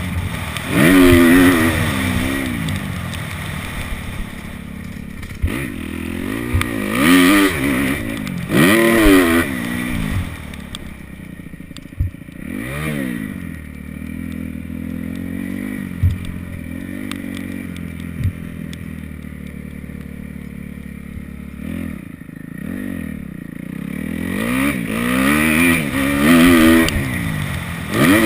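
Kawasaki KX250F dirt bike's single-cylinder four-stroke engine being ridden hard, its pitch sweeping up and down as the throttle is opened and shut again and again. Through the quieter middle stretch the engine runs at lower revs, with a few sharp knocks.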